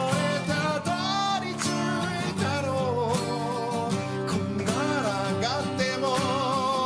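A man singing a song while strumming an acoustic guitar, his voice wavering with vibrato over steady strummed chords.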